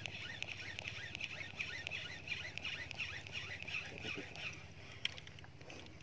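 Rapid high chirping: many short repeated calls from small animals, several a second, thinning toward the end, over a low steady hum.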